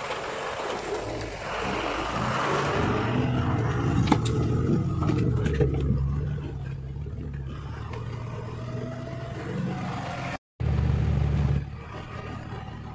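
Truck's diesel engine running at low speed over a rough, rutted mountain road, with the cab and body rattling and knocking sharply a few times. The sound cuts out for a moment near the end.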